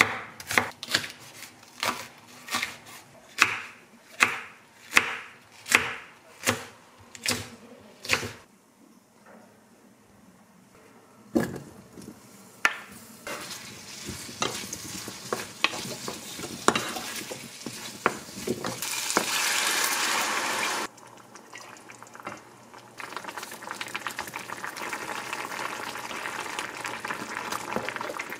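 A chef's knife slices an onion on a wooden cutting board, about a dozen even strokes one every half second or so, then a short lull. Cubed potatoes then sizzle in chili oil in a small pan while a wooden spatula stirs and scrapes, with a loud hiss for about two seconds past the middle that cuts off suddenly, and a steady sizzling bubble near the end as the braising sauce cooks.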